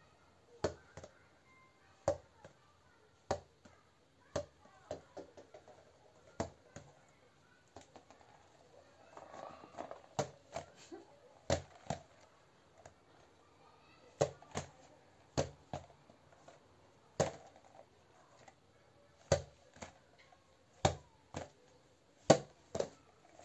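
Silicone push-pop fidget balls being handled and set down on a wooden floor: a string of irregular sharp knocks, roughly one a second, some louder than others.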